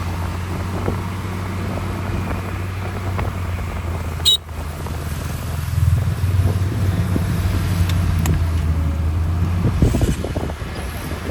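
Heavy diesel earthmoving machinery running with a steady low drone, growing louder about six seconds in as it works harder. A single sharp click about four seconds in.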